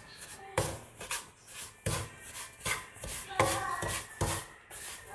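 Wooden spatula stirring and scraping semolina in ghee around a metal kadhai, in repeated short strokes about two or three a second, as the semolina is roasted.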